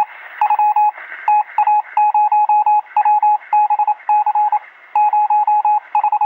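Electronic beeping sound effect: a steady-pitched tone keyed on and off in quick, uneven runs of short and longer beeps, over a hiss of radio-like static. Brief pauses come about a second in and again past the middle.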